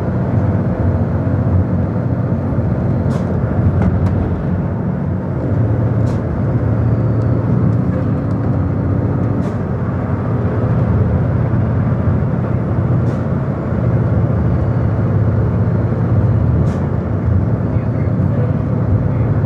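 A road vehicle's engine and tyre noise heard from inside the cabin while driving on a winding highway: a steady low rumble, with a faint click every three to four seconds.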